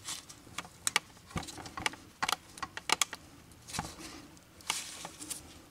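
Irregular sharp clicks and metallic clinks of hand tools and parts being handled on a car's rear hub and brake assembly.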